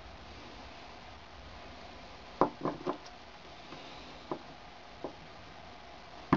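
Several short knocks of a small metal tool and a wooden stump piece against a wooden workbench as the tool is pressed into the wood: three close together about two and a half seconds in, two lighter ones later, and a sharp one at the very end.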